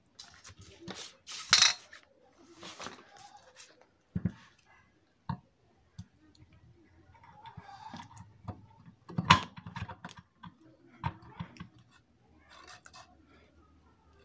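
Clatter, scrapes and knocks of metal ceiling-fan parts being handled as the wound stator is set into the fan's cover plate, with a few sharper knocks, the loudest about nine seconds in.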